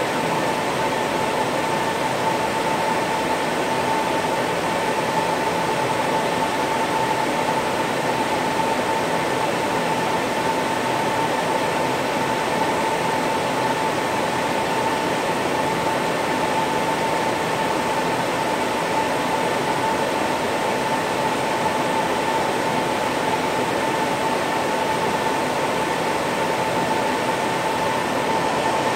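Cooling fans of an EMC Isilon storage node running steadily as the node boots: a loud, even rush of air with a constant whine.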